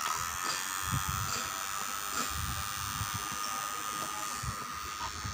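Electric heat gun running steadily: its blower fan gives a continuous hiss with a thin steady whine, with a few low bumps as it is moved around.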